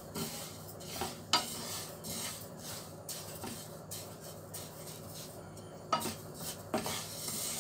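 Wooden spoon stirring raw sesame seeds as they dry-toast in a nonstick frying pan: a dry, scraping rustle of seeds across the pan, with a few sharp knocks of the spoon against the pan.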